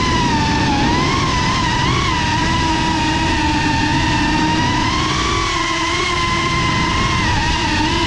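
A GEPRC Cinelog 35 cinewhoop FPV drone's motors and propellers whining steadily, the pitch wavering up and down as the throttle changes.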